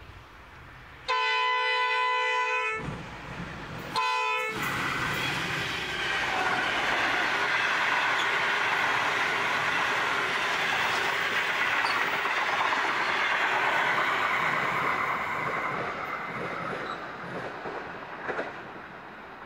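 An NR-class diesel-electric locomotive's multi-tone air horn sounds one long blast and then a short one, warning for the level crossing. The locomotive and its passenger carriages then roll past with steady wheel-on-rail rumble and clickety-clack, fading away after the last carriage passes.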